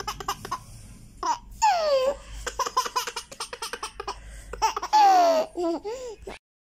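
High-pitched laughter in a run of quick bursts, with two long whoops that fall in pitch, cutting off abruptly near the end.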